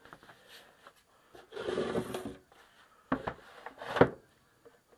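Pine nested trays and blocks handled on a wooden workbench: a scrape of wood sliding on wood, then two sharp knocks of wood set down on wood about a second apart, the second the loudest.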